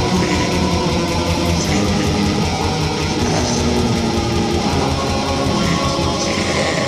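Dark metal recording: electric guitars strumming over bass guitar in a dense, steady wall of sound.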